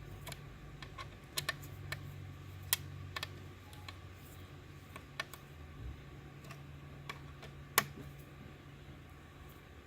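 Irregular light clicks and taps of an Allen wrench working the blow-off valve's mounting bolts as they are snugged down, two of them sharper than the rest, over a steady low hum.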